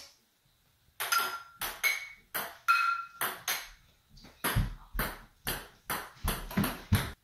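A ping pong ball clacking back and forth, bouncing on a stone countertop and struck by metal frying pans, some hits giving a short ringing ping from the pan. In the last few seconds deeper bounces follow one another more and more quickly.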